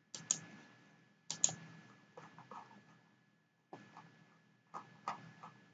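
Faint scattered clicks and taps of a computer mouse and keyboard, in small clusters about once a second.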